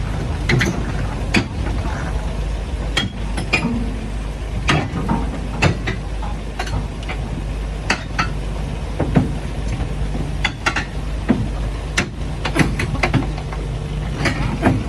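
Irregular clinks, knocks and scrapes of hand tools on a construction site, one or two a second, over a steady low machine hum.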